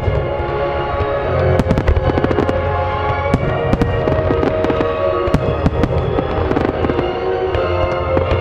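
Aerial fireworks display: a rapid string of sharp bangs from shells bursting, thickest in the first half, with music playing under it.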